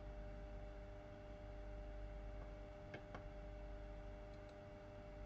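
Low steady hum of room tone, with two sharp clicks in quick succession about three seconds in, like a computer mouse being clicked.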